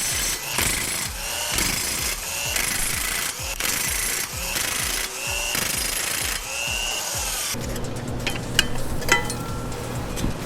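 A handheld power tool run in about six short bursts, each revving up and back down in pitch. About seven and a half seconds in, it gives way to steady background music with a few clicks.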